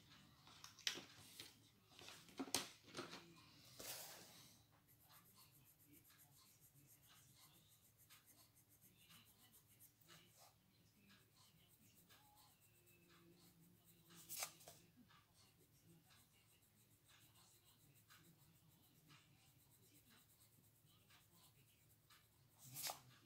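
Coloured pencil shading on paper: faint, quick scratchy strokes, with a few sharp taps, louder ones near the start, one around the middle and one near the end.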